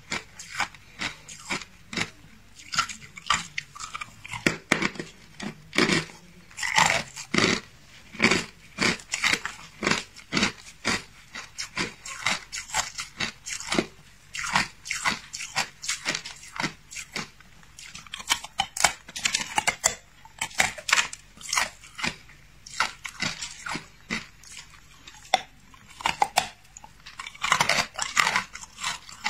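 Hard clear ice being bitten and chewed: a run of sharp crunches and cracks, several a second, with short gaps between mouthfuls.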